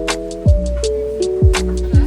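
Background music: held chords over a steady beat, a kick drum and hi-hat ticks.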